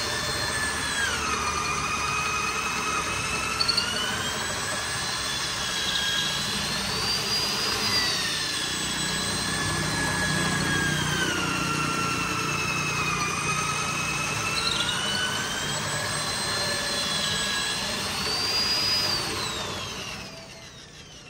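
Corded electric drill with a long bit boring lengthwise into a solid wood slab, drilling a hole for a tie rod to keep the slab from cracking and warping. The motor's whine sags in pitch as the bit loads up, then picks back up, twice. Near the end the drill is switched off and winds down.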